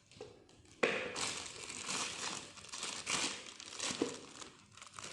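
Packaging being handled: irregular crinkling and rustling that starts sharply about a second in and goes on in uneven bursts.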